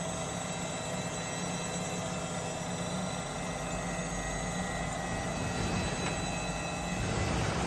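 Jones & Shipman 1077 hydraulic universal cylindrical grinder running: a steady mechanical hum with several steady tones. The noise swells louder near the end.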